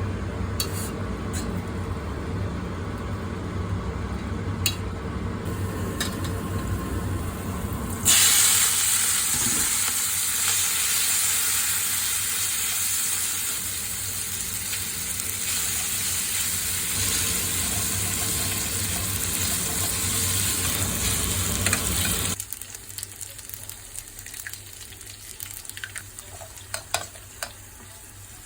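Food frying in a hot pan: a loud sizzle starts suddenly about eight seconds in and drops away about twenty-two seconds in. Before it there is a low steady rumble, and after it only a few light clicks.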